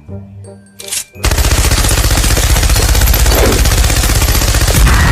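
A short jingle, then about a second in a loud, rapid rattle like machine-gun fire that keeps going. Near the end a steady two-tone horn starts over it.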